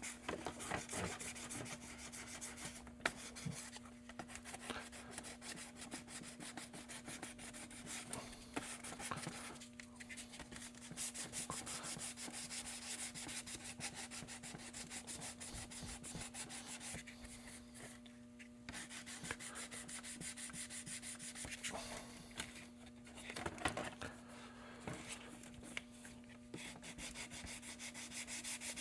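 Hand sanding of a plastic RC truck body with 320-grit sandpaper: continuous quick back-and-forth scratchy rubbing strokes, smoothing down body filler and glazing putty over a repaired hole.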